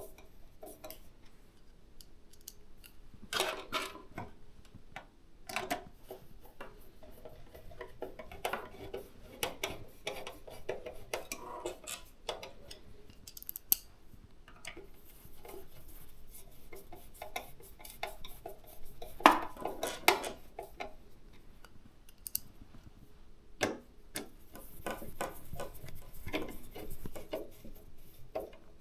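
Hands fitting PC hardware: irregular small clicks, clacks and rustles of plastic and metal parts and cables being handled, with louder clattering bursts twice.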